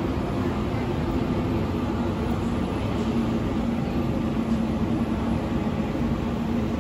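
Steady low rumble of outdoor urban background noise with a faint, even mechanical hum running through it.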